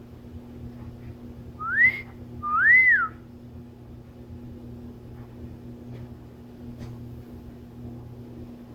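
Two whistled notes over a faint steady low hum: a short upward-sliding whistle, then a longer one that rises and falls.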